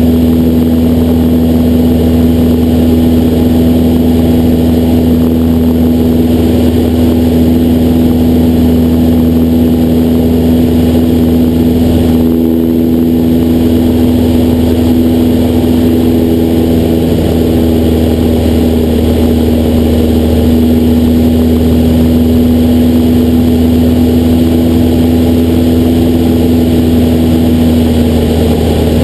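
Cessna 172SP's four-cylinder Lycoming engine and two-blade propeller running steadily in cruise flight: a loud, even drone with a strong steady low tone.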